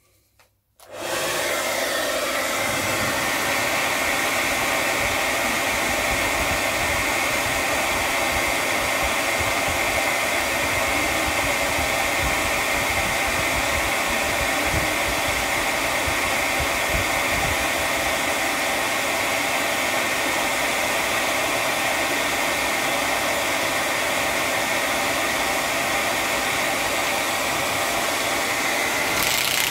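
Handheld hair dryer switched on about a second in and running steadily, a rush of air with a steady whine, blowing on a wet watercolour painting to dry it.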